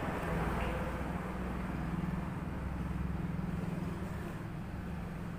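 Steady low background rumble with a droning hum: the noisy background of the recording.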